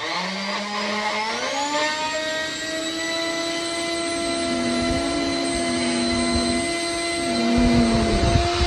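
Brushless RC ducted-fan motor spinning an Audi A4 turbocharger's compressor wheel in a 3D-printed housing: it starts suddenly and spools up over about two seconds to a steady high-pitched whine made of several tones. Uneven low surges come in about five seconds in and again near the end.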